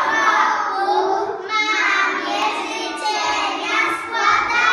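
A group of young children singing together in unison, unaccompanied, in phrases with short breaks between them.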